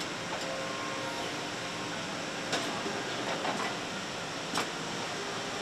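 Steady mechanical noise of an engine assembly line, with a few sharp knocks about two and a half, three and a half and four and a half seconds in.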